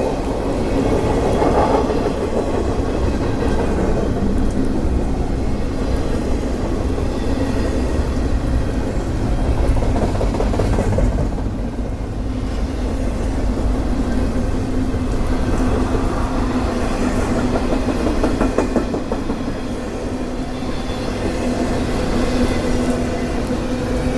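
Intermodal container cars of a CSX freight train rolling past: a steady rumble of steel wheels on the rails with some clicking over the rail joints. A steady hum in the low mid-range grows stronger near the end.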